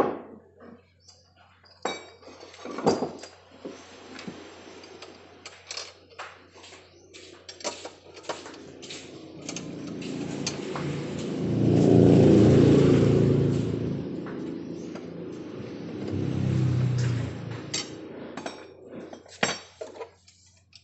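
Metal tools and parts clink and knock as a motorcycle engine crankcase is worked on by hand. A motor vehicle passes, swelling to the loudest sound about halfway through before fading, then rising briefly once more a few seconds later.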